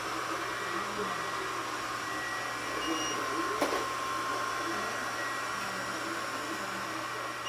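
Robot vacuum cleaner running: a steady whirring hiss with a thin, even high tone. A single sharp knock comes about three and a half seconds in.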